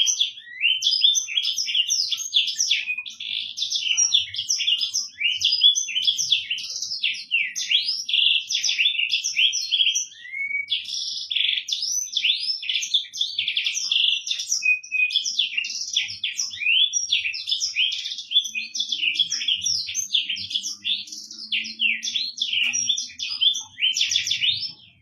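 Black-throated canary (blackthroat) singing a long, fast, unbroken song of rapid twitters, trills and chirps, with pitch sweeping up and down; it stops abruptly near the end.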